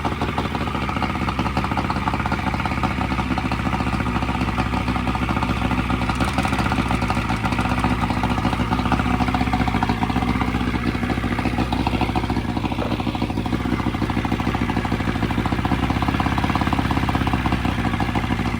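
A newly installed 70 hp outboard motor running steadily just after starting, with cooling water coming out of it.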